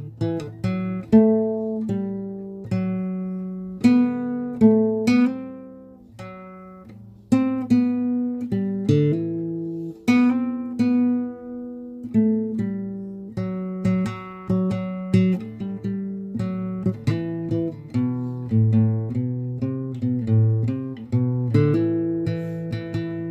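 Solo acoustic guitar playing a melody of single plucked notes and chords, each note struck sharply and ringing out as it fades.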